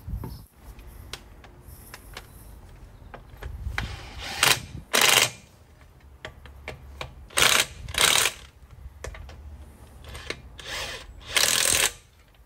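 Power wrench running the wheel nuts on as a car's road wheel is refitted: short loud bursts in three pairs, with lighter handling clatter between them.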